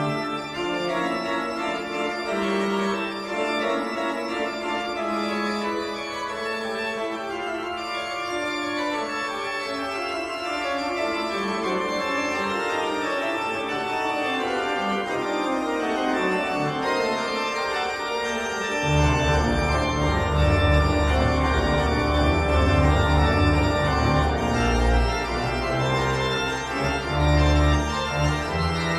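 Background music of sustained keyboard chords, with a heavy bass line coming in about two-thirds of the way through.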